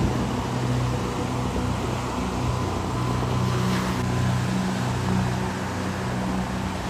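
A low steady hum over the wash of ocean surf, with a brief swell of surf noise about three and a half seconds in.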